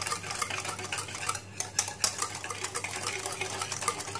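Metal wire whisk beating instant coffee, sugar and hot water in a plastic bowl, rapid scraping and clicking strokes with a short break about one and a half seconds in: whipping dalgona coffee until it foams.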